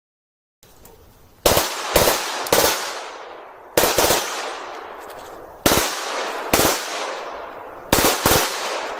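A machine gun firing short bursts of automatic fire, each burst ringing out in a long echo; the bursts come in clusters of two or three with pauses of a second or two between them.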